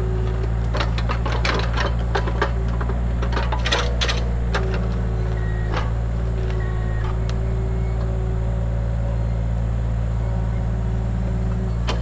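Mini excavator's engine running steadily, with a hydraulic whine that shifts in pitch and scattered clanks and knocks as the bucket digs at a stump, most of them in the first half.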